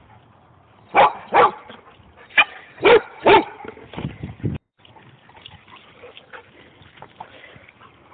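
A dog barking: five loud barks in quick succession, then a few softer ones before the sound cuts off suddenly, leaving only faint background.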